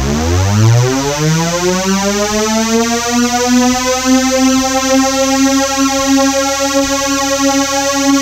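A synthesizer tone that sweeps up in pitch from a deep rumble over the first few seconds, then holds on one steady note.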